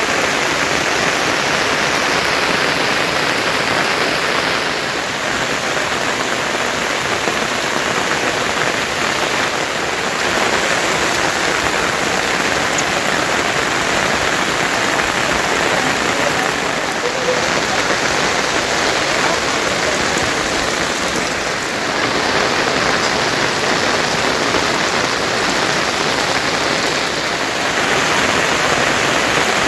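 Heavy rain falling steadily as a dense, even hiss, its tone shifting slightly every few seconds.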